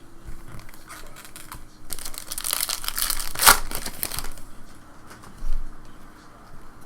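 Trading-card pack wrapper crinkling and tearing for about two seconds as a pack is ripped open, loudest near the middle, followed by a soft low bump.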